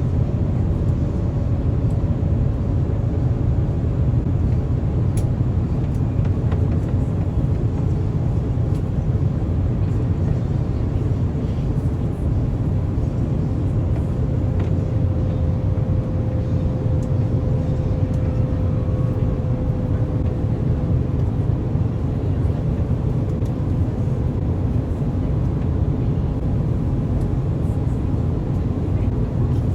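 Steady cabin noise inside an Airbus A350 in flight: an even, low rushing sound of the Rolls-Royce Trent XWB engines and airflow, with a faint steady hum above it.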